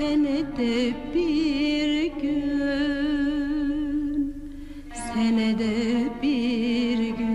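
Slow Turkish song: a long, ornamented melody line with wide vibrato over sustained accompaniment, a new phrase starting about five seconds in.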